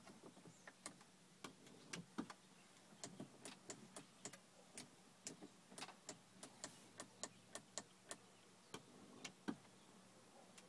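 Faint, irregular sharp ticks and clicks, a few a second, over a faint steady hum inside the car cabin.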